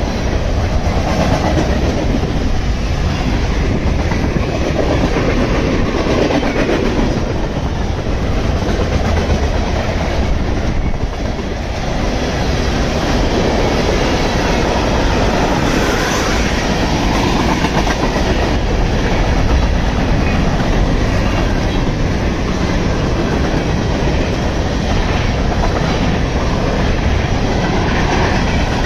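Freight cars of a fast-moving mixed manifest train (boxcars, tank cars and covered hoppers) rolling past close by: a loud, steady rumble of steel wheels on rail with clicking as the wheels cross rail joints.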